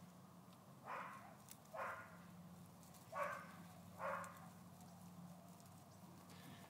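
A small dog nosing and mouthing at a cracked egg in the grass: four short, sharp sounds in two pairs, each pair about a second apart.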